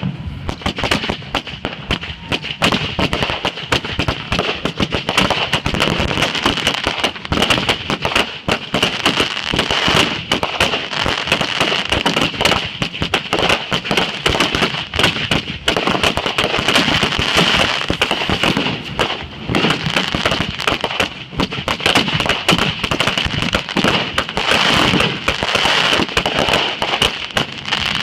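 Fireworks going off in a long, unbroken string of rapid bangs and crackles.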